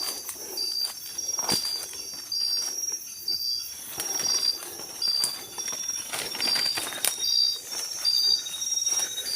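Night insects calling: a short, high chirp repeats about every half second over a steady, high-pitched drone, with a few rustling footsteps in between.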